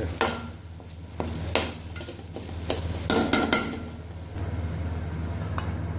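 A metal spatula stirring fried taro slices in a metal karahi, scraping and knocking irregularly against the pan, with the oil sizzling underneath.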